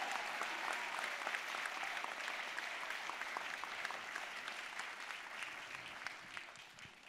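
Audience applauding, a dense patter of clapping that gradually thins and fades out near the end.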